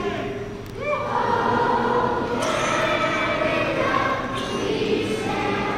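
National anthem sung by many voices across a large hockey arena, in long held notes with a short break between phrases about half a second in.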